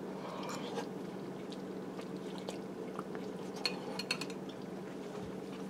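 A metal fork clicks a few times against a ceramic plate about two-thirds of the way through, over a steady low background hum.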